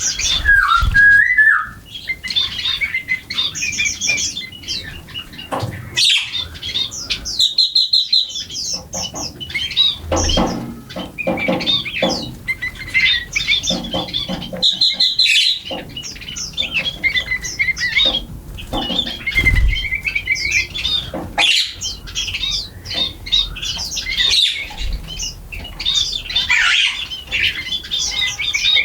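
A flock of small birds chirping and calling over one another in a dense, continuous chatter while feeding.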